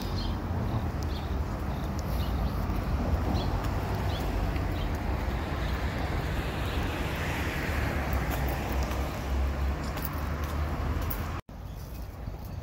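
Street ambience of road traffic: a steady rumble of passing vehicles, one of which swells and fades about seven seconds in. Near the end the sound breaks off suddenly and a quieter outdoor background follows.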